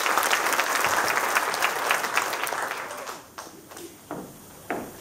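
Audience applauding, a dense clatter of many hands that dies away about three seconds in.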